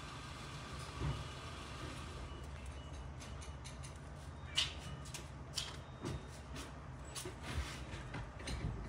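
Black-billed magpie giving a series of short, harsh calls, irregularly spaced, starting about halfway through, over a low steady hum.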